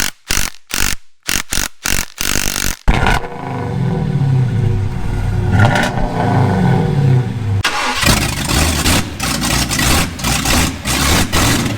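A run of short sharp knocks for about three seconds, then an engine catches and runs, its speed rising and falling. From about eight seconds in it settles into a steadier, noisier running sound.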